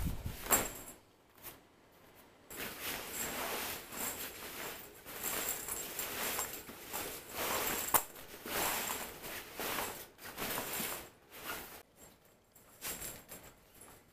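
Tent fabric rustling and crinkling as it is unfolded and spread out over a floor mat by hand, with a few sharp clicks, the clearest about eight seconds in.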